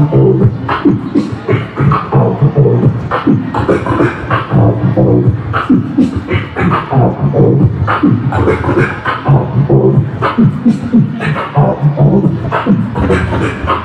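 Live beatboxing amplified through a handheld microphone cupped to the mouth: hummed bass tones under a fast, steady run of kick, snare and click sounds made with the mouth, without a break.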